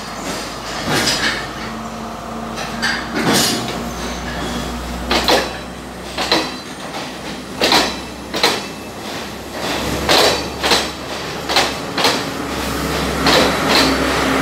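Passenger train coaches pulling away from a station platform, their wheels knocking over rail joints, the knocks coming closer together as the train gathers speed. A low steady rumble grows louder near the end.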